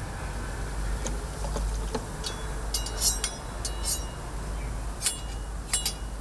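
Metal spatula clinking and scraping against a steel crepe griddle, several sharp metallic clicks with short rings from about halfway through to near the end, over a steady low hum.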